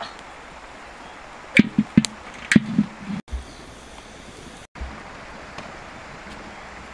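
Large metal wok clanking several times in quick succession as it is set down on the stones of a wood-fired hearth, over a steady outdoor background hiss.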